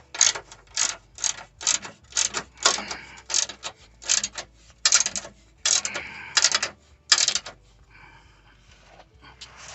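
Hand ratchet wrench being swung back and forth, a burst of pawl clicks with each return stroke about twice a second; the ratcheting stops about seven and a half seconds in.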